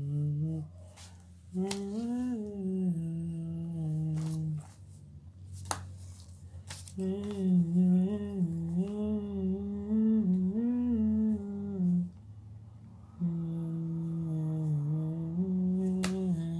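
A person humming a tune in three drawn-out phrases with short pauses between them, plus a few faint clicks.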